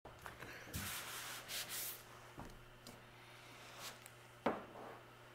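Plastic body-filler spreader scraping filler across a sheet-metal truck hood in strokes, loudest in the first couple of seconds and quieter after, with two light knocks further on.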